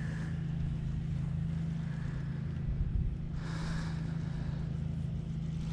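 A steady low hum with wind on the microphone, and a brief rustle about three and a half seconds in.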